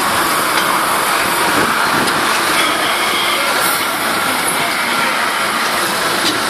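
Steady mechanical running noise from the push-up bus sculpture's motorised drive as its limbs lever the red double-decker bus up, even in loudness throughout.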